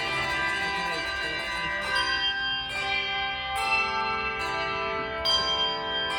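Handbells ringing a piece of music: several bells sound together, and from about two seconds in new chords are struck about once a second, each ringing on under the next.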